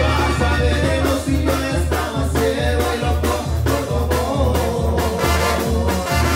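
Banda-style Latin music: brass instruments playing over a steady bass beat of about two beats a second.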